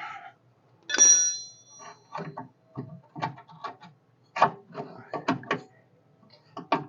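A small metal part strikes with a brief bell-like ring about a second in, then a string of light metallic clicks and knocks as shock-absorber hardware and tools are handled.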